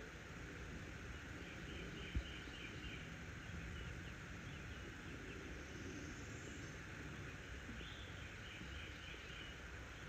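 Faint, quick runs of soft peeping from newly hatched chicks brooding under their hen, twice (about two seconds in and near eight seconds), over a steady background hiss, with one brief knock about two seconds in.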